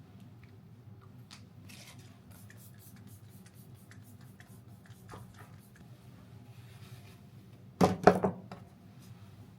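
Small objects being handled: scattered light clicks and taps over a low steady hum, then two loud knocks close together about eight seconds in.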